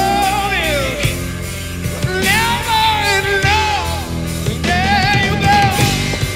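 Grunge rock band playing a slow ballad live, with drums, bass and electric guitars under a high melody line that bends and wavers in pitch.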